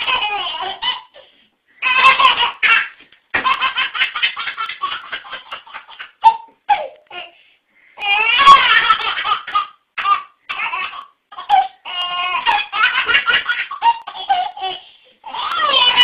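A baby laughing hard in repeated fits of rapid, chopped, high-pitched laughs, with short pauses between the fits.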